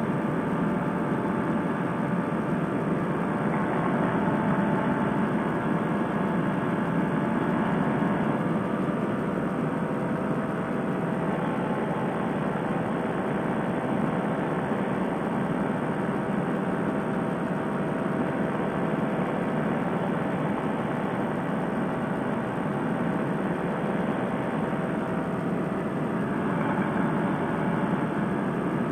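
Fresh Breeze Monster two-stroke paramotor engine and propeller running steadily at cruise power in flight, an even drone with no change in pitch.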